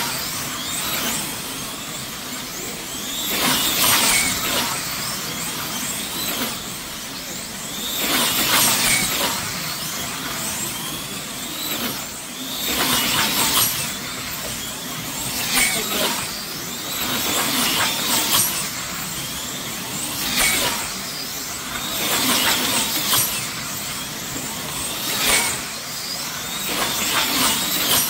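Electric slot cars racing around a large banked slot car track: a high-pitched whine from their motors, with the cars' sound swelling and fading each time one passes close by, about every two to five seconds.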